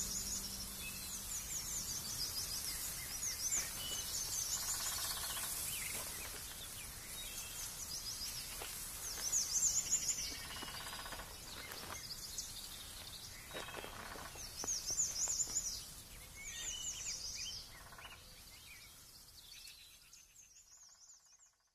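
Birds chirping, repeating short quick trills every second or two over a steady high hiss, fading out near the end.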